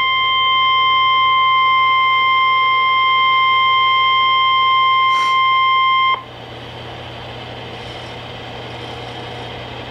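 Weather-radio warning alarm tone, a single steady beep that cuts off suddenly about six seconds in. After it only steady radio hiss with a low hum is left, the dead air before the warning message is read.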